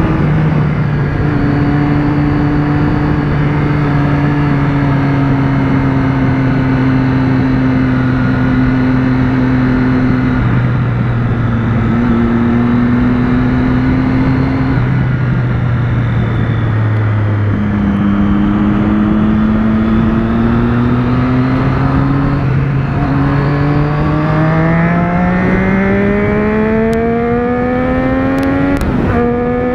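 Motorcycle engine heard from the rider's seat with wind rush: it cruises with a slowly falling tone, its pitch steps up once midway, then it accelerates with a steadily rising pitch for several seconds and drops as the rider changes up a gear near the end.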